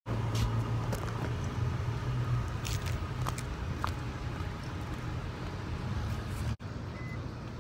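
Car cabin noise while driving: a steady low rumble of engine and road, with a few small clicks and knocks.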